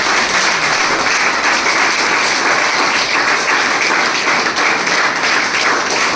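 Group applause: many people clapping their hands steadily and densely throughout.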